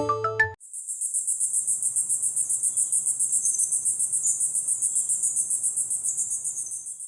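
Cricket-like chirping ringtone played by the Nokia T26: a high trill pulsing evenly at about eight pulses a second, starting just after the last note of a short marimba-like tone and stopping about seven seconds in.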